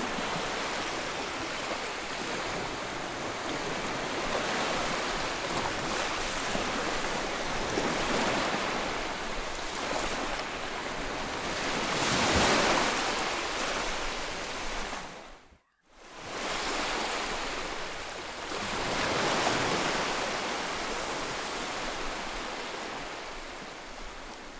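Sea waves washing onto a shore, the surf swelling and ebbing every few seconds. The sound cuts out for a moment about two thirds of the way through, where the recording is spliced, then returns and fades out near the end.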